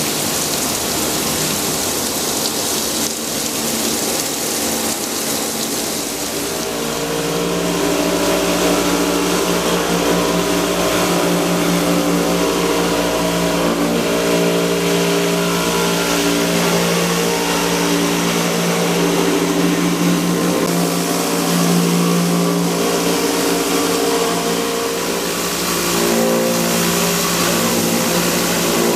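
A CNC stone-cutting saw at work: a steady hiss of water spray with the machine's running noise. About seven seconds in, a set of steady hums comes in and stays, shifting in pitch now and then as the cut loads the blade.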